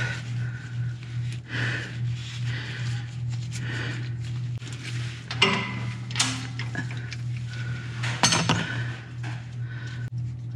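Ratchet wrench and socket clinking on the rear differential's drain plug of a Toyota Land Cruiser as it is worked loose, with sharper metal clanks about halfway through and again near the end. A steady low hum underlies it.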